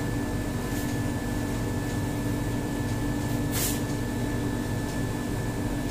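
Steady mechanical room hum with a constant whine, and a short marker stroke on a whiteboard about three and a half seconds in.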